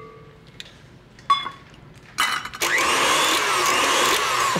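Stand mixer with a wire whisk running for about two seconds, starting abruptly about two seconds in and stopping just before the end, briefly folding flour into beaten egg yolks and sugar. A short metallic clink about a second in comes before it.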